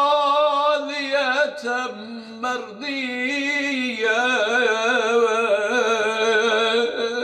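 A man chanting a Quranic verse in long, drawn-out notes that waver in pitch, with a few short breaks between phrases.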